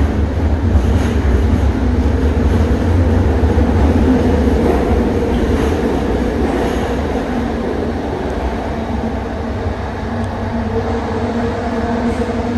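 ART200 metro train heard from inside a moving car: a steady heavy rumble of wheels on rail with a steady motor hum, the hum growing stronger near the end.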